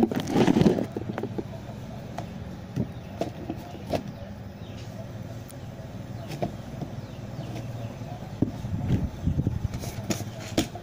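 Handling noise: rustling and knocks as a Fluke digital multimeter is moved about close to the phone's microphone, loudest in the first second and again near the end, with scattered small clicks in between over a steady low hum.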